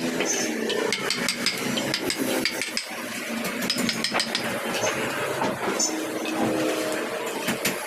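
Hand wood-carving tools tapping and knocking on wood many times at an irregular pace, over a steady motor-like hum.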